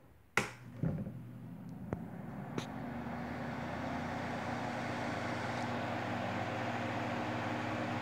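Insignia NSF9T6BK 9-inch table fan with a shaded-pole motor and three plastic blades, switched on at its low speed. A click comes about half a second in, then the motor hum and air noise rise as the blades spin up. By about three seconds it settles into a steady, quiet whirr.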